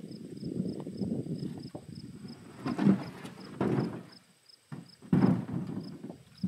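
Footsteps crunching and knocking over loose, dry riverbed rocks, uneven in pace, with a few louder knocks of stone on stone.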